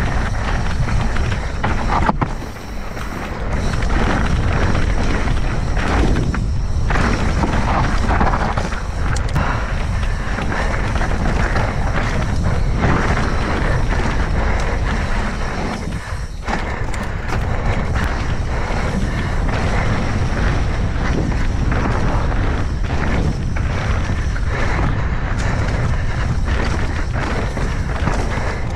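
Background music over the steady rumble and clatter of a mountain bike riding a rough, rocky trail, with many short knocks from the bike over the ground.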